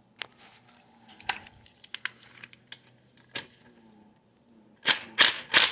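Scattered light clicks and handling noises of tools and parts, then near the end a quick run of sharp, hissy bursts, about three a second.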